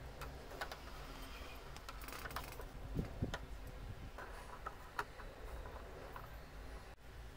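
Scattered light clicks and taps of a metal tube and a 3D-printed PLA hull being handled and fitted together, over a faint low room hum.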